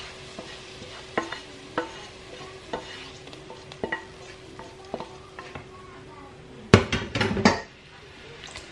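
Wooden spoon scraping and knocking in a stainless steel stockpot as hot fried onions are scraped from a frying pan into the bean stew and stirred, with light sizzling. Two louder clattering knocks come about seven seconds in.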